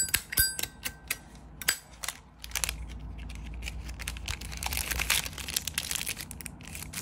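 Zippo lighter being handled: a few sharp metal clicks with a brief bright ring in the first second, the lid's clink. Then a busy patter of small clicks and rustling as the lighter is turned over in the hand.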